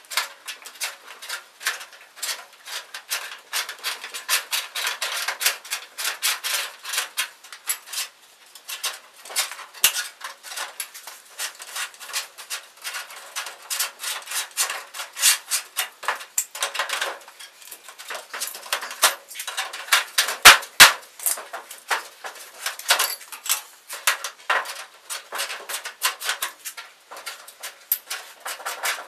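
Galvanized sheet-metal duct edges being bent down into flanges with a hand seamer: a fast, dense, irregular clatter of metal clicks, creaks and rattles, played back in fast-forward.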